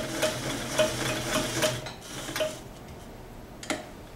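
Vintage Sears Kenmore sewing machine stitching through two layers of denim, freshly overhauled and running quietly: a steady motor hum with a regular knock from the needle strokes, about three or four a second. It stops about two and a half seconds in, and a single click follows about a second later.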